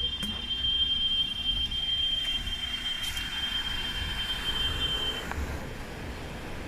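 A cicada calling with a steady, high-pitched whine that dies away and stops about five seconds in.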